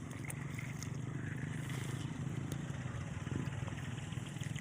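A small engine running steadily, a low even hum with a fast pulse.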